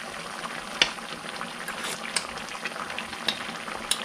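Dakdoritang (spicy braised chicken stew) bubbling as it simmers in a frying pan, a steady hiss full of small pops. A metal spoon knocks sharply against the pan about a second in, with a few lighter clicks after it as sauce is scooped up to taste.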